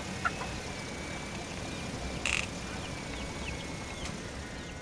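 Small electric gear motors of a toy RC excavator whining steadily at a high pitch as the boom and bucket move, with a click just after the start and a short burst of noise about two seconds in.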